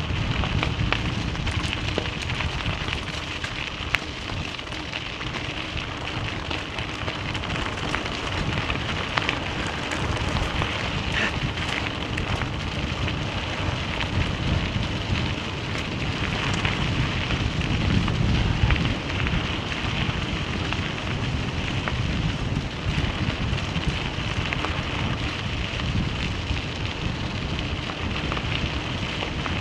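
Tyres rolling over a loose gravel road, a steady crackling crunch of stones, with wind rumble on the microphone.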